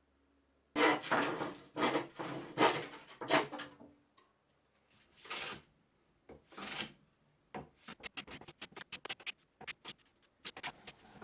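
Hand tool working wood: a handful of loud, rough strokes, two smoother ones, then rapid short strokes about four or five a second.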